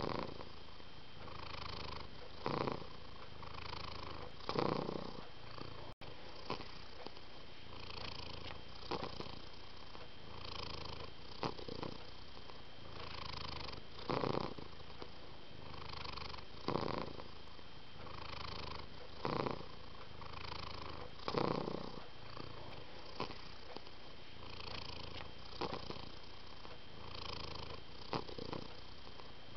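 A domestic cat purring steadily, swelling louder in a regular rhythm about every two to three seconds. There is a momentary break about six seconds in.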